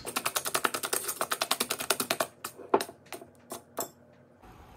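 Wire whisk beating heavy cream by hand in a ceramic bowl: rapid, regular clicking of the wires against the bowl, thinning to a few scattered taps after about two seconds and stopping near the end, the cream at soft peaks.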